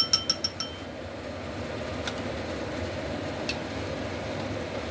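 A metal utensil clinks against a cooking pot about six times in quick succession, with a ringing tone, then twice more faintly, over a steady even noise.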